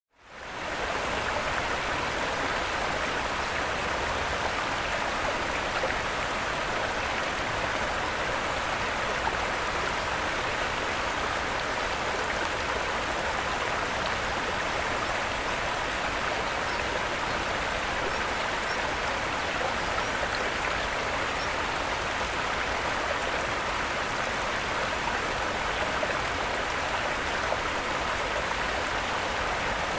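Steady rushing of running water, like a stream, fading in over the first second and holding even throughout.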